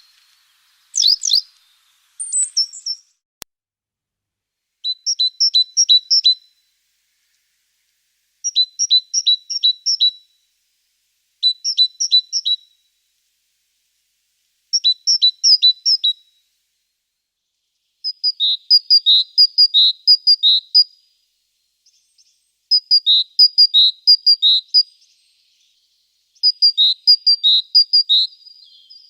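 A small songbird singing short phrases of quick, repeated two-note figures, one phrase every few seconds, with a couple of single chirps near the start. The later phrases run longer.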